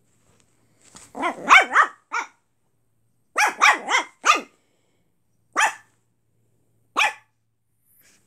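Brussels Griffon puppy barking in short high yaps: a quick run of four, another run of four, then two single barks a little over a second apart. These are cheeky play barks at a cat.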